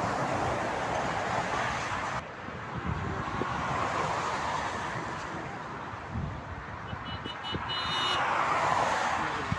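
Motorway traffic passing: the tyre and engine noise of several vehicles swells and fades as each goes by, loudest near the start and again about eight seconds in.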